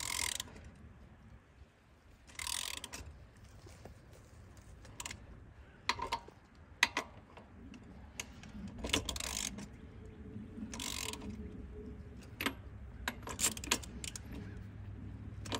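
Ratchet wrench clicking in short bursts, several times, as the nuts on a bus's axle shaft flange are turned; some of the studs are stripped and won't hold torque.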